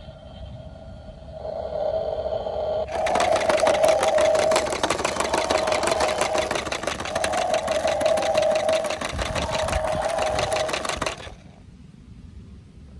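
Battery-powered toy transport truck running its motorised bounce and sound effects: a steady pitched tone, then from about three seconds in a fast mechanical rattle over a steady hum, which stops suddenly about eleven seconds in.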